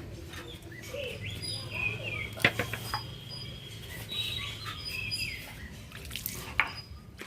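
Small birds chirping and calling over a low steady hum, with a few sharp knocks, the loudest about two and a half seconds in.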